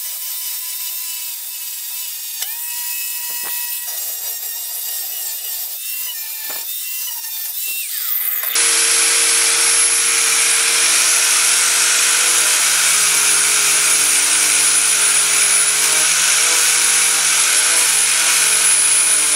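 Angle grinder with a sanding disc abrading old varnish off sheet steel, its motor whine dipping briefly each time it is pressed in. About eight seconds in it turns suddenly louder and harsher as the disc works a steel patch piece held in a vise.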